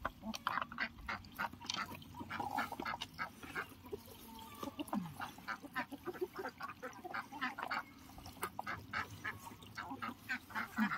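Backyard poultry flock of chickens and ducks calling: a steady run of short, rapid clucks and quacks, several a second, overlapping one another.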